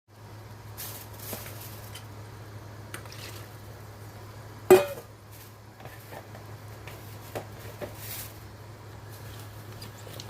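Pots, pans and utensils knocking and clinking while cooking, with one loud ringing metal clank about halfway through, over a steady low hum.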